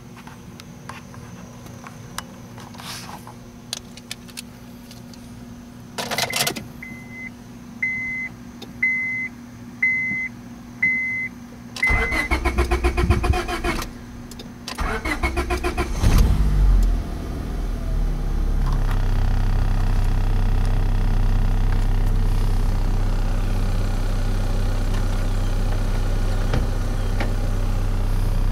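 A car's dashboard chime beeps six times, about once a second, after a brief thump. Then the 2003 Honda Civic's starter cranks the engine in two short tries; it catches on the second and settles into a steady idle.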